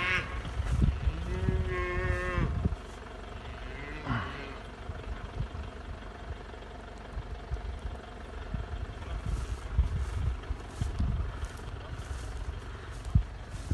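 An animal calling twice: a held, wavering cry, then a short falling one, followed by low thumps and rumble.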